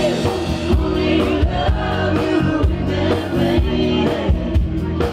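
Live band playing, with electric bass, keyboards and drums under a sung lead vocal, and a steady drumbeat.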